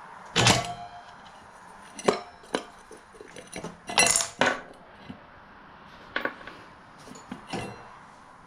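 Metal brake parts of a mini bike clinking and clanking as the brake assembly is taken off: about seven sharp knocks with a short metallic ring, the loudest about half a second and four seconds in.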